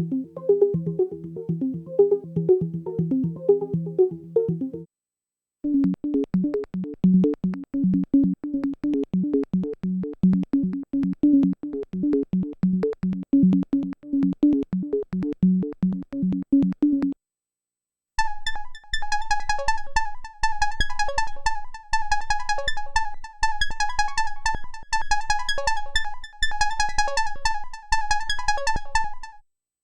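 Dave Smith Evolver synthesizer playing three different patches in turn, each a fast run of repeated pitched notes, with short silent gaps between them. The first two patches sit low; the third, from a little past the middle, is much higher and brighter, over a soft low pulse.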